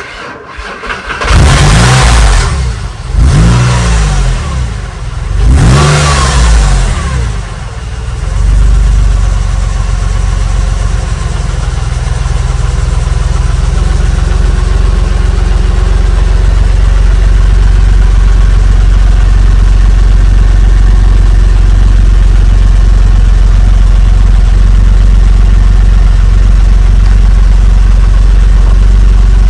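Porsche 996 911's flat-six engine starting, then revved three times, each rev rising and falling in pitch. After about eight seconds it settles into a steady idle.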